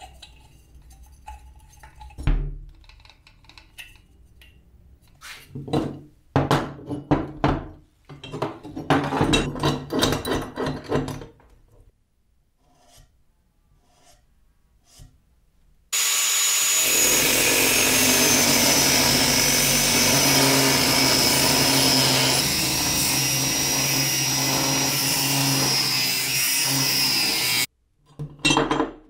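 Clicks, knocks and rubbing as tools and metal parts are handled on a workbench. Then a power tool cutting metal runs steadily for about twelve seconds with a high whine and stops abruptly.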